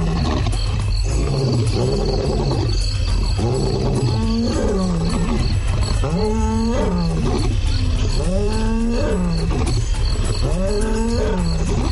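Lion roaring: a series of deep roars about two seconds apart, each rising and then falling in pitch, the first ones weaker and the later ones full and strong.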